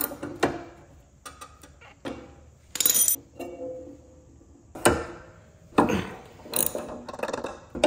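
A hand ratchet wrench clicking on a mower blade bolt, in short separate runs, with sharp metal clanks of tools against the steel mower deck.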